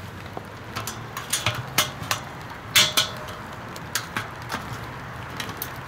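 Metal legs and wire brace of a Weber Master-Touch kettle grill clinking and clacking together as the legs are worked into the bowl's leg sockets: a run of sharp metallic clicks, loudest about three seconds in and thinning out towards the end.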